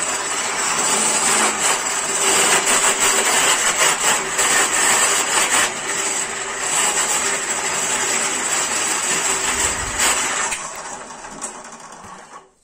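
Schulz FSB16 bench drill press running, its bit boring into hardwood with a steady hum and rough cutting noise. Near the end the motor is switched off and winds down.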